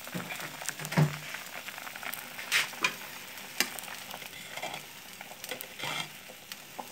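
Soup boiling hard in a metal pot while a ladle stirs it, scraping and knocking against the pot several times; the loudest knock comes about a second in.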